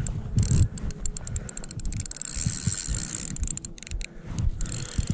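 Spinning reel clicking rapidly and irregularly as a hooked sturgeon is played on the line, with low handling and wind rumble on the microphone.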